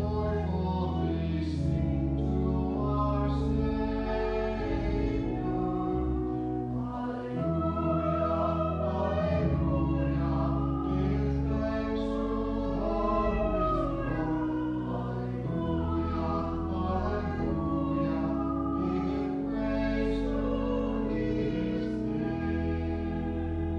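A small group of singers singing a church song of praise in parts, accompanied by organ with long held bass notes and sustained chords.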